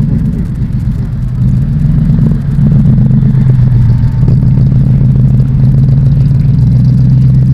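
A vehicle engine running steadily at a constant speed: a loud, low, even drone with a rumble beneath it.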